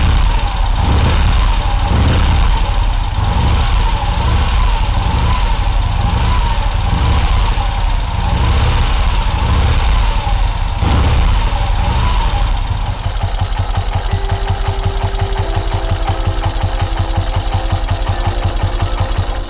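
1951 Vincent Rapide's 998 cc V-twin engine running, its note surging and falling for about the first twelve seconds, then dropping to a steady, even idle, run to check that the dynamo is charging. Background music comes in over the idle in the last few seconds.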